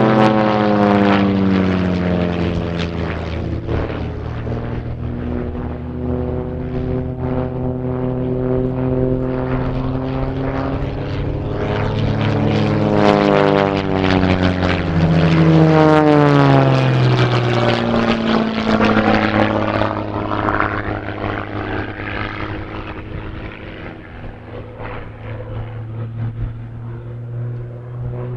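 Piston-engined aerobatic biplanes flying overhead, the drone of their engines and propellers sliding down and up in pitch as they pass, climb and dive. It is loudest about halfway through.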